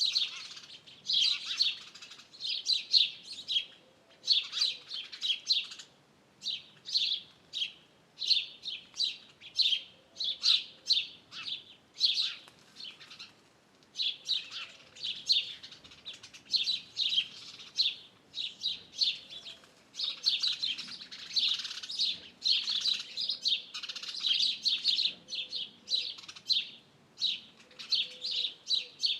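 Small songbirds chirping: dense runs of short, quick chirps that come in clusters, with brief pauses between them.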